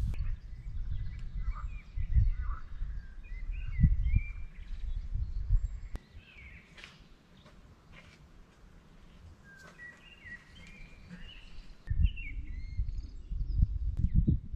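Small birds chirping and singing, with short rising and falling notes throughout. Under them a loud, uneven low rumble drops away for several seconds in the middle.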